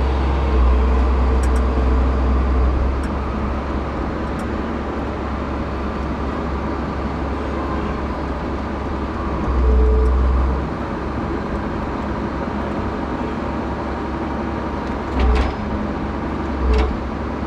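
The engine of a heavy machine lifting and setting down a freshly dug walnut burl runs steadily. It revs up shortly after the start and again about ten seconds in, and two short, heavy thumps come near the end.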